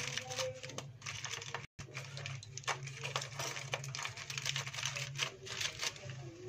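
Aluminium foil crinkling in quick irregular crackles as hands fold and press it shut around a food packet, over a low steady hum. The sound drops out for an instant about two seconds in.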